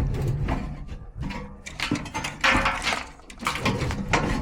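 Scraping, rubbing and knocking of metal parts as a blower assembly is worked into a furnace cabinet by hand, in uneven bursts.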